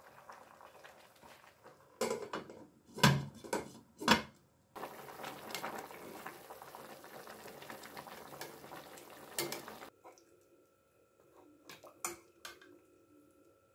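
Metal utensils clanking against a stainless steel cooking pot as a stew of beef and greens is stirred: a few sharp knocks about two to four seconds in, then several seconds of steady stirring that stops abruptly, then a few lighter ladle clinks on the pot near the end.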